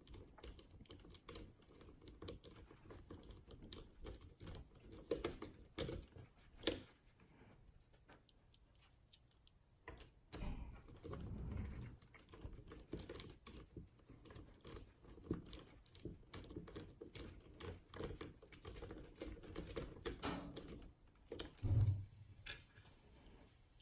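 Faint, scattered clicks and taps of a small hex wrench and plastic parts as a spur gear is screwed back onto an RC car, with a couple of louder low handling thumps.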